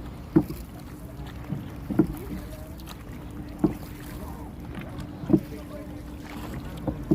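Dragon boat paddle strokes, a crew paddling slowly in unison: an even thud about every second and a half to two seconds, over a steady low hum.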